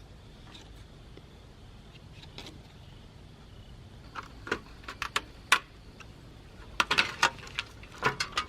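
Sharp clicks and knocks of LCD monitor parts being handled and pulled apart, starting about halfway through and coming in quick clusters that grow louder toward the end.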